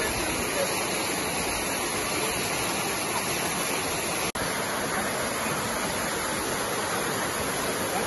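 A waterfall pouring over rock slabs, a steady rushing of water that cuts out for an instant about four seconds in.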